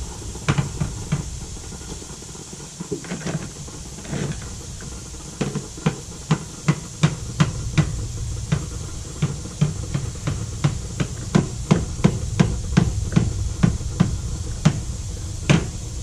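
Repeated knocks of a long metal rod striking the top of a stainless drip coffee maker: a few scattered hits at first, then a steady run of about two to three a second that stops shortly before the end.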